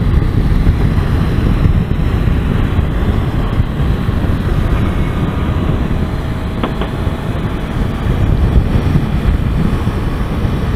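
Wind rushing over the microphone of a motorcycle riding at about 40 to 45 mph, with the bike's engine running underneath.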